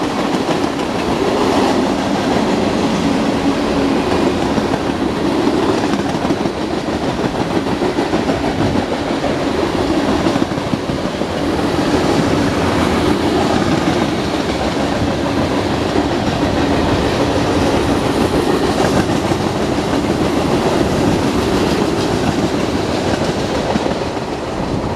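Union Pacific freight train's cars rolling past: a steady rumble of steel wheels on rail, with clickety-clack as the wheels cross rail joints.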